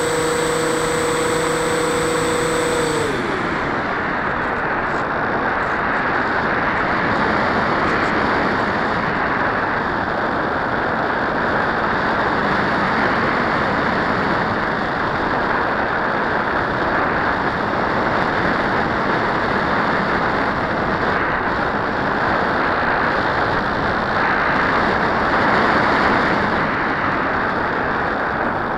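RC plane's brushless electric motor and propeller giving a steady high whine, which winds down and stops about three seconds in. After that, a steady rush of wind over the airframe and onboard camera as the plane glides.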